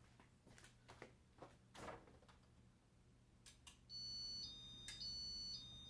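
Casablanca InteliTouch wall control beeping: a run of high electronic tones alternating between two pitches for about two seconds, following a few faint clicks of the buttons being pressed.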